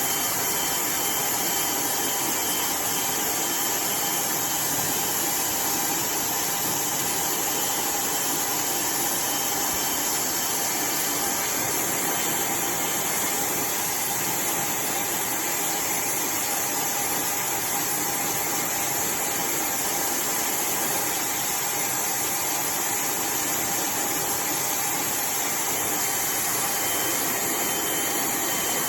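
iDryer AI Pro Style hair dryer running steadily: an even rush of blown air with a faint steady whine from its motor.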